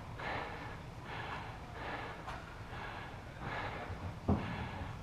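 A person breathing close to the microphone, soft regular breaths about one a second, with one sharp thud about four seconds in.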